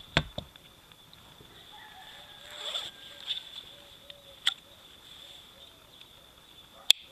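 Handling noise from knives and jacket fabric: a sharp knock just after the start, a short rustle near three seconds, a few light clicks, and one sharp click near the end as a small Swiss Army knife is handled. A faint steady high-pitched tone runs underneath.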